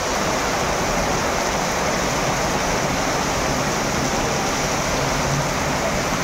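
Heavy rain falling in a steady, even rush.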